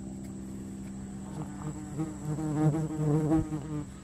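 A flying insect buzzing close by, its pitch wavering up and down, for about two seconds from a second and a half in, over a steady low hum.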